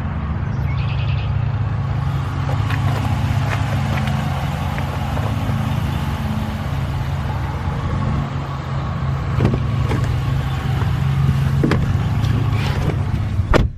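5.7-litre Hemi V8 of a 2015 Dodge Ram 1500 idling steadily, then cutting off suddenly near the end.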